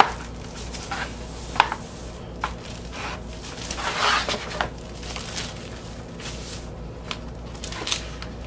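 Handling of a shrink-wrapped vinyl record jacket and its cardboard mailer: the plastic shrink wrap crinkles and rustles as it is pulled off, with several sharp taps and clicks of cardboard. The loudest click comes about one and a half seconds in, and the longest rustle about four seconds in.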